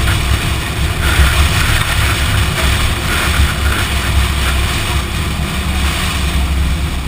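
Toyota Supra's 2JZ straight-six engine running under load as the car drives at speed, heard from a camera mounted on the car's side, with heavy wind rushing over the microphone.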